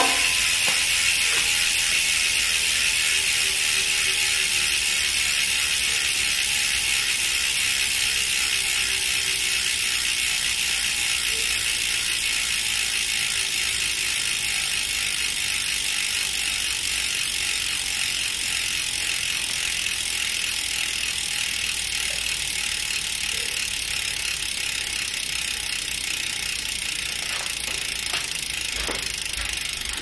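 Novatec D042SB rear hub's three-pawl freehub clicking rapidly as the rear wheel coasts, a steady ratchet buzz that slowly grows quieter as the wheel spins down.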